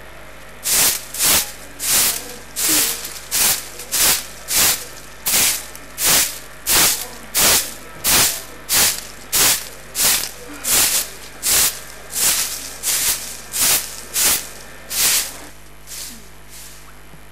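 Short hand broom sweeping leaves across paving stones in quick, even strokes, about one and a half a second, stopping shortly before the end.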